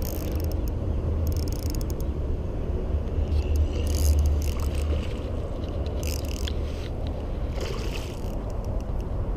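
A hooked peacock bass thrashing and splashing at the water's surface in several short bursts, the loudest one about eight seconds in, while a spinning reel is wound. A steady low rumble runs underneath.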